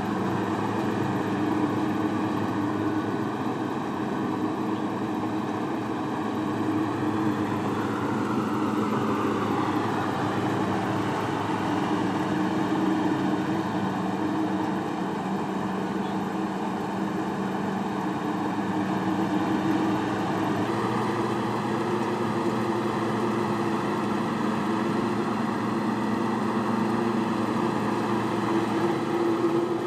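Engine of a farm machine running steadily under work, a continuous mechanical drone with a slight shift in its note about a third of the way through and again about two-thirds through.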